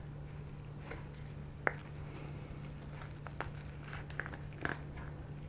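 Plastic spoon clicking and scraping against the takeaway cup of a chocolate lava cake as it is scooped, with light crinkling of the container; a few scattered clicks, the sharpest about one and a half seconds in.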